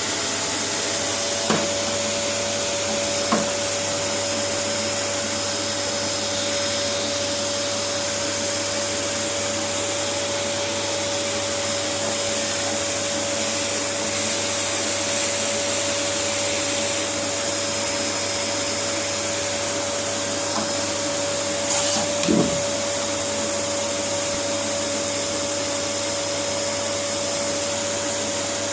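Vacuum cleaner running steadily, a constant whine over its even rush of air. A few brief knocks break through about one and a half seconds in, again about three seconds in, and twice more around twenty-two seconds in.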